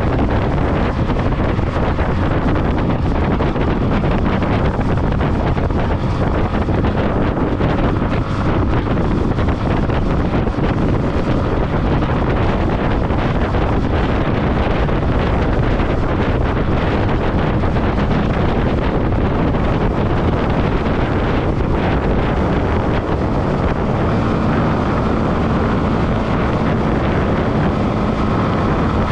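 Heavy wind noise on the microphone from riding a Yamaha motorcycle at speed, with the motorcycle's engine running underneath. In the last few seconds a steady engine hum comes through more clearly.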